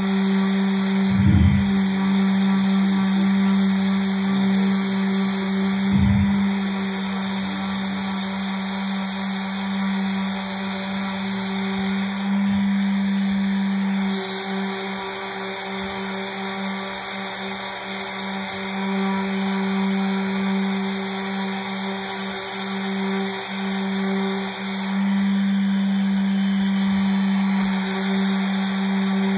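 Electric random-orbit sander running steadily as it sands a paper-faced veneer panel. Two short knocks come in the first six seconds, and its hum wavers for a stretch in the middle as it is worked across the surface.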